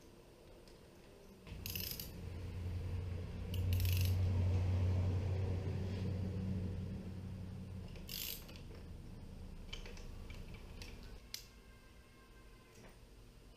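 Scattered mechanical clicks and short rasping bursts of hand tools working on motorcycle handlebar mounts. A low rumble swells a couple of seconds in and fades away.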